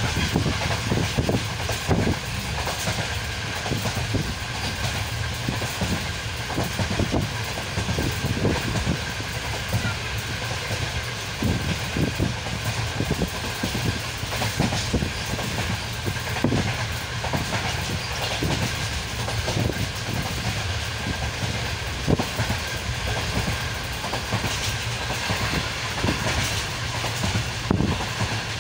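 Moving passenger train heard from the carriage: a steady rumble of the running train with irregular clacks of the wheels over the rail joints.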